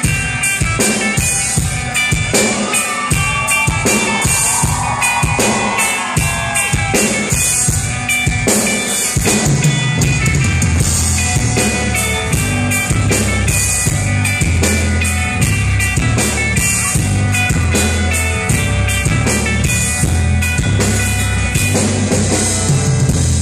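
Live rock band playing an instrumental passage: drum kit keeping a steady beat with electric guitar and bass guitar. About ten seconds in, heavy bass and kick drum come in.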